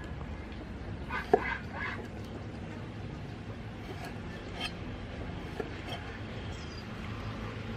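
Cleaver slicing a lime on a round wooden chopping board, a few separate knocks of the blade on the wood, the sharpest about a second in.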